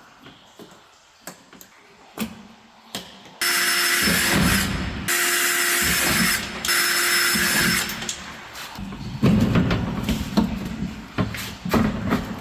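Power drill running in two bursts of about a second and a half each, steady in pitch, followed by irregular clicks and knocks of parts being handled.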